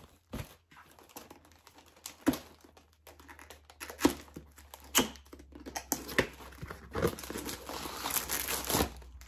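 Packaging crinkling and rustling as a makeup brush set in its carrying case is unpacked by hand, with scattered sharp clicks from handling; the crinkling gets denser near the end.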